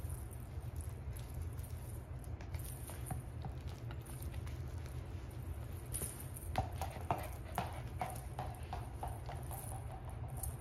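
A kitten's paws and a plush toy scuffling and tapping on a rug and wooden floor during rough play, a scatter of light taps and patter. From about six seconds in, a pet gives a run of short repeated calls, with taps between them.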